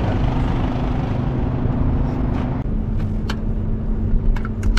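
Sandstorm wind blowing hard across the microphone over a low vehicle engine hum. About two and a half seconds in, the sound cuts to inside the vehicle's cabin: the wind drops away, leaving the engine running steadily, with a few short clicks near the end.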